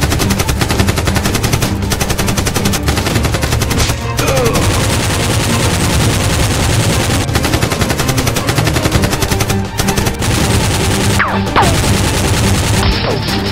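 Rapid, continuous automatic gunfire sound effects dubbed over the action, with a few brief breaks between bursts. Background music runs underneath.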